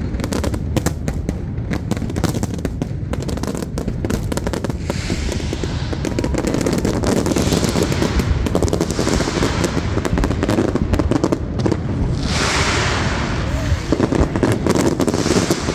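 Fireworks display going off: a dense, rapid string of bangs and crackles.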